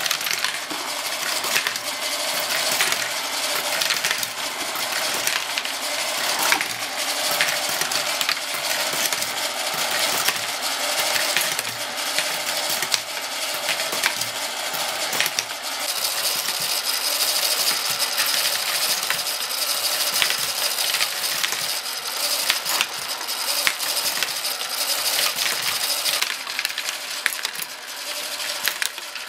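LEGO Great Ball Contraption module running: small plastic LEGO balls and moving LEGO parts clicking and clattering without a break. A steady high whine joins in about halfway through and stops again some ten seconds later.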